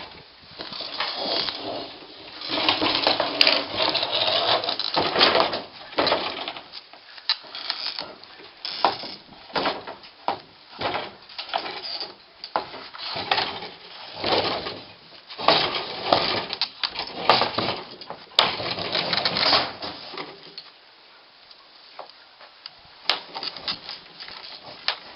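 A fibreglass sailboat half-hull being lowered on a rope and set down on the ground: irregular scraping, knocking and rustling, dropping away for a couple of seconds near the end.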